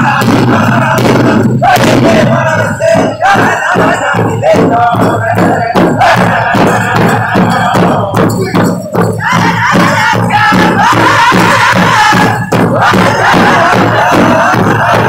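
Powwow drum group singing in loud, high voices over a large powwow drum struck in unison by several drumsticks, a steady beat of about three strokes a second.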